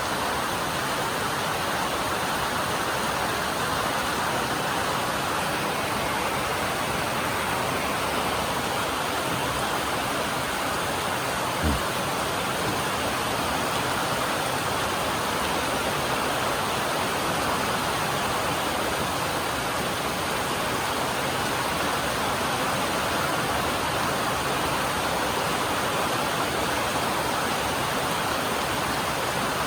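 Steady heavy rain drumming on a metal roof, an even hiss. A single dull low thump about twelve seconds in.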